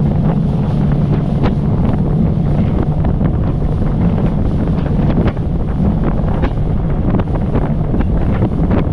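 Boat motor running steadily under way, a constant low drone, with wind buffeting the microphone and frequent short knocks through it.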